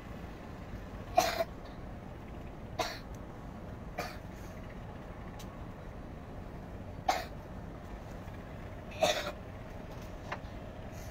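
Steady low rumble aboard a small fishing speedboat, broken five times by short sharp sounds, the loudest about a second in and again about nine seconds in.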